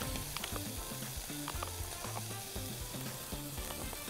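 Chicken sizzling steadily as it grills in a pan, with scattered light clicks of a utensil stirring a yogurt-and-mustard salad dressing in a glass bowl.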